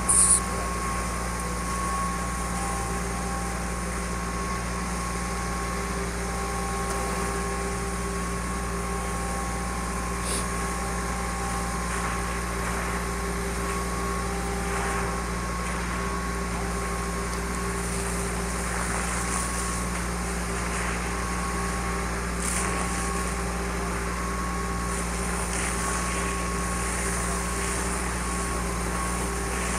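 Steady drone of an idling engine, with a constant low hum and several steady tones. A brief loud hiss comes right at the start.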